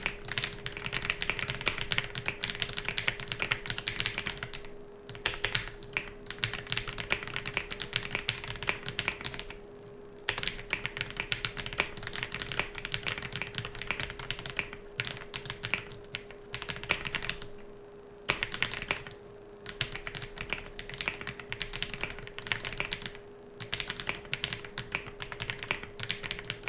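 Fast typing on an Osume Dalgona mechanical keyboard, in quick runs of keystrokes broken by a handful of short pauses. The keys sound fairly quiet and not very clacky.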